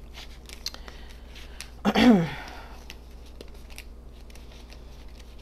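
Tarot cards being handled and turned upright: a run of light, sharp clicks and flicks of card stock, with one brief louder sound falling in pitch about two seconds in.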